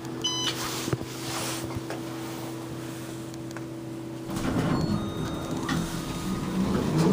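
Otis Series 5 hydraulic elevator: a short single ding about a quarter second in over a steady low hum, then the doors sliding open from about four seconds in, with louder rumbling and rattling.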